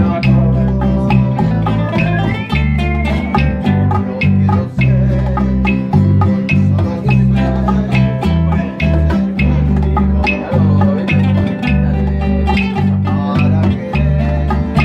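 A string trio playing an instrumental passage: quick plucked guitar-like notes over a steady line of deep bass notes, keeping a regular beat.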